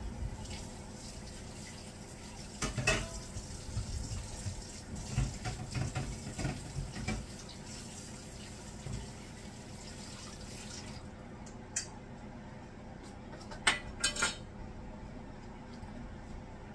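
Kitchen dishes and metal utensils clattering and clinking, in a busy run a few seconds in and a few sharp clinks near the end. A steady hiss under them stops about two-thirds of the way through.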